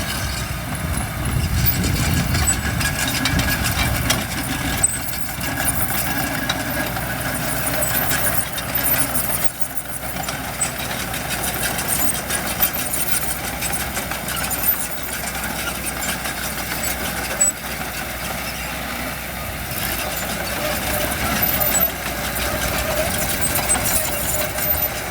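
Heavy diesel engines of earthmoving machinery running steadily, with a few brief sharp knocks.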